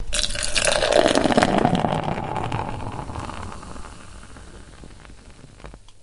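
Beer being poured into a glass: the stream splashing into the glass starts abruptly and is loudest for the first two seconds or so, then the sound fades steadily as the pour ends and the foam head settles.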